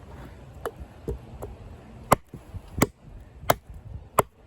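Condor Heavy Duty Kukri, a thick 1075 high-carbon steel blade, chopping into a log: a sharp chop about every 0.7 s, with a few lighter strikes first and four hard ones in the second half. The blade is biting into the wood rather than bouncing off.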